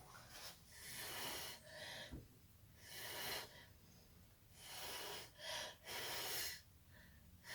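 Short puffs of breath blown from the mouth onto wet acrylic paint to push it across the canvas, about six separate airy blasts roughly a second apart.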